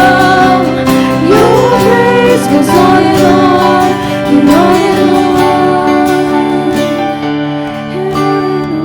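A worship song: a voice singing over acoustic guitar and accompanying instruments.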